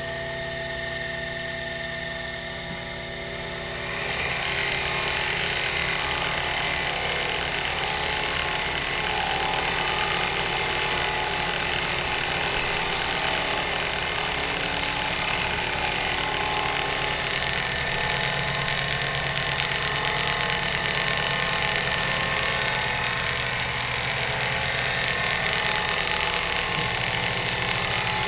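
Sherline CNC mill's end mill cutting an aluminium plate at a slow feed: a steady cutting noise with a high whine, over the hum of the spindle and stepper motors. It gets louder about four seconds in and then holds steady.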